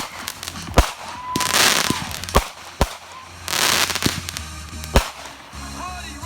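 Consumer fireworks going off: several sharp bangs, two bursts of loud crackling hiss each lasting under a second, and short whistling tones near the end.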